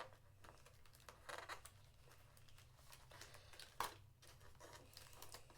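Faint tearing and crinkling of a small cardboard blind box and its wrapping being opened by hand, with one sharp click about four seconds in.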